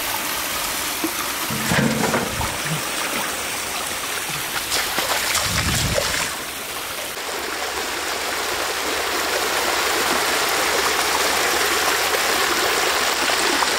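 Shallow stream water rushing steadily over rocks, with hands splashing in the water a couple of times in the first half as fish are grabbed.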